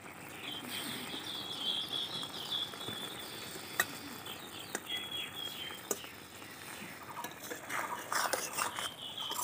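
Fish curry simmering in an aluminium kadai, sizzling with a few sharp pops. A high chirping sound runs behind it.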